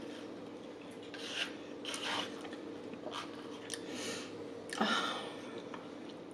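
A fork scraping and scooping mac and cheese out of a small paper side cup: several short scrapes spread over a few seconds, with one sharp click near the middle.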